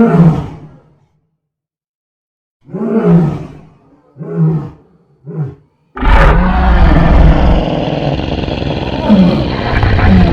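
Monster roar sound effects for an Anguirus-like kaiju: one roar at the start, then three shorter calls, each briefer than the one before. About six seconds in, a loud continuous noisy sound starts and runs on with growling tones through it.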